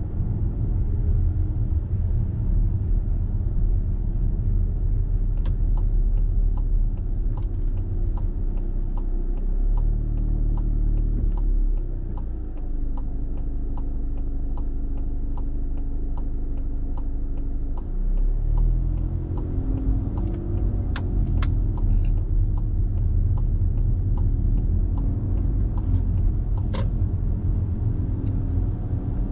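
Car driving through town, a steady low rumble of engine and road noise that drops for several seconds midway while the car waits at a red light. A turn indicator ticks steadily, about three ticks a second, through most of it, and stops near the end as the turn is made.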